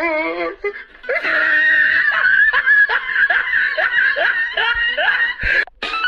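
A meme sound-effect clip of a person laughing in quick, repeated high-pitched bursts, each falling in pitch, about three a second, running for about four seconds. It follows the end of a sung clip.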